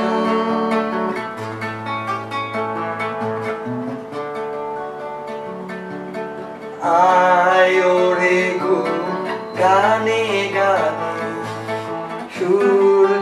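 An acoustic guitar plays chords while a man sings over it. His voice swells louder for two stretches, about seven and ten seconds in.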